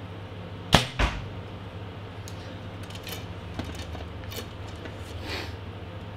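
A PSE Perform X compound bow is shot: a sharp crack as the string is released, then a second, smaller smack about a third of a second later as the arrow strikes the target. Light clicks and rattles follow as the next arrow is handled.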